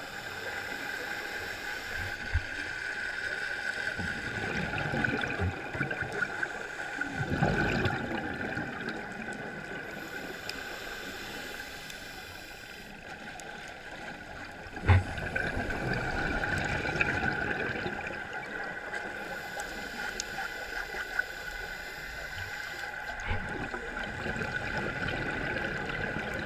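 Underwater sound through a camera's waterproof housing: a steady wash of water noise with slow swells of bubbling from scuba divers' exhalations, and stretches of high hiss that come and go. A single sharp knock about halfway through.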